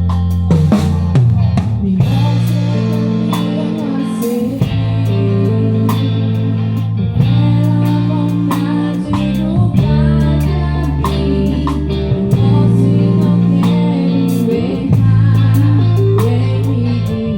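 A band playing: a drum kit beat over held bass notes and guitar.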